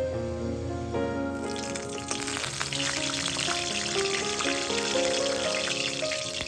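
Food frying in hot oil in a pan, with a hissing sizzle that starts suddenly about a second in and carries on, over background music.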